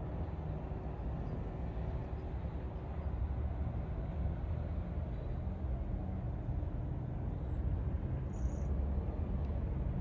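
TGV high-speed train running away down the line: a low, steady rumble.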